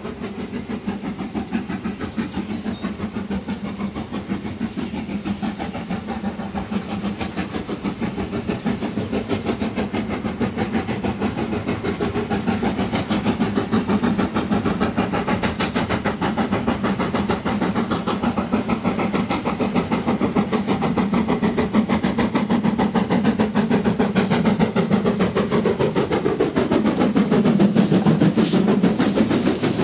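Two steam locomotives double-heading a train, working hard with rapid, overlapping exhaust beats. The beats grow steadily louder as the engines approach, and near the end they pass close by with a dip in pitch.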